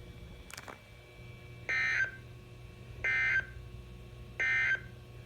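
Three short bursts of EAS digital data tones, the end-of-message code, from a NOAA Weather Radio broadcast: each a buzzy two-pitch warble under half a second long, about 1.3 seconds apart, signalling that the alert has ended. A faint click comes about half a second in.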